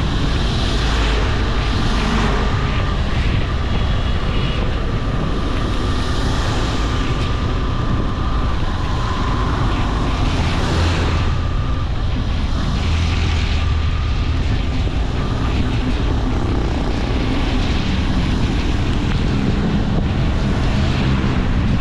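Motorcycle underway: a steady loud rumble of the engine mixed with wind buffeting on the microphone and road noise.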